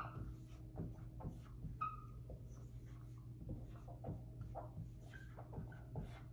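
Dry-erase marker writing on a whiteboard: a run of short scratchy strokes with a few brief squeaks.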